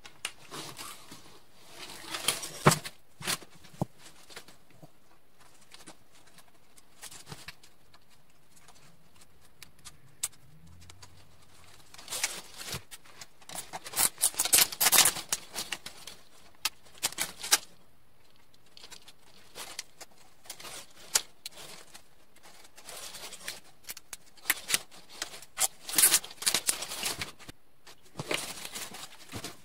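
Nylon zip ties ratcheting as they are pulled tight through chicken wire and a plastic bin wall, in several bursts of rapid clicking, with the wire mesh rattling as it is handled.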